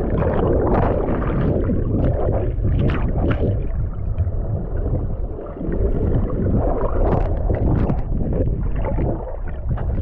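Moving water, loud and muffled, with its weight low down and a few sharper splashes around three seconds in and again around seven.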